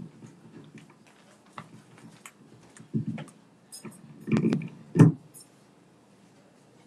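Handling noise on a handheld microphone: faint rustling and a few short thumps about three, four and a half and five seconds in, as the mic is moved and adjusted while its signal goes in and out.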